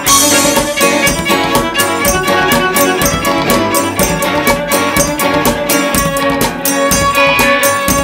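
Instrumental passage of a small folk-rock band: bowed cello, clarinet, strummed electric and acoustic guitars and drum kit with a steady beat, and no singing.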